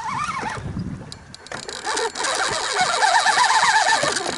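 Fishing reel drag buzzing as a hooked fish runs and pulls line off the spool, starting about a second and a half in, its pitch wavering with the fish's pull.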